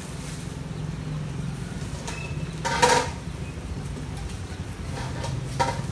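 A motorbike engine running with a steady low hum, and a short sharp clatter about three seconds in.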